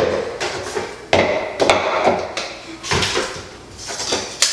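Knocks and clatter of containers and cups being picked up and set down on a wooden dresser top, about half a dozen sharp knocks roughly a second apart, with handling noise between them.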